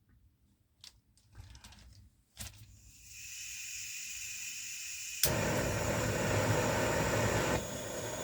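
Handheld gas torch being lit: a few handling clicks, then the valve opens with a steady hiss of gas. About five seconds in, a sharp igniter click lights the flame, which burns with a steady rushing noise that eases down a little near the end.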